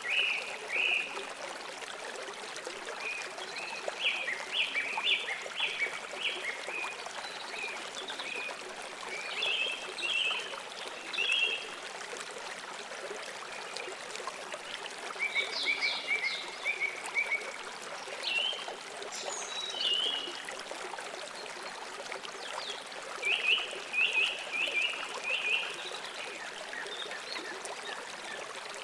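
River water running steadily, with short bouts of rapid, high-pitched chirping calls every few seconds.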